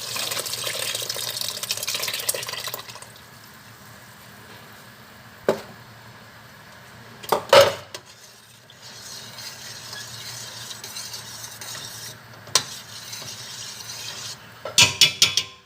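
Pork dinuguan cooking in a pot: a loud sizzle for the first three seconds as the pig's blood goes into the hot pot, then a quieter steady sizzle while it is stirred. A spoon knocks against the pot three times, with a quick run of metal clatters near the end.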